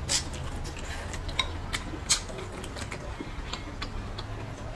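Close-miked eating: about a dozen sharp, crisp clicks scattered irregularly as crunchy vegetables are chewed and chopsticks pick through the bowl, over a faint steady low hum.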